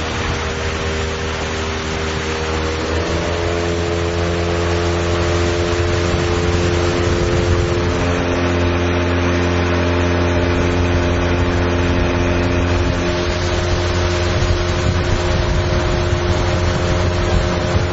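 Motorboat engine running steadily under way, with a wide hiss of wind and water. The engine note rises slightly about three seconds in.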